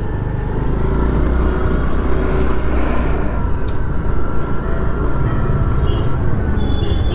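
Motorcycle riding along at low speed: steady engine and road noise, with heavy wind rumble on the microphone.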